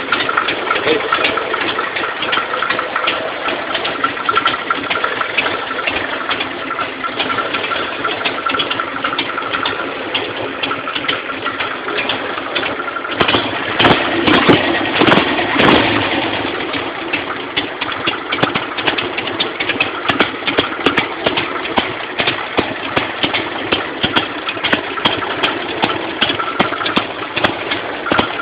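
Harley-Davidson Sportster 883's V-twin engine idling, getting louder for a few seconds about halfway through before settling back to idle.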